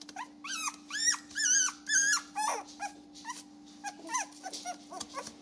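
A young puppy squealing and whining: four loud, high squeals, each rising then falling, in the first two seconds or so, then a lower falling whine and a string of shorter, softer squeaks. A steady low hum runs underneath.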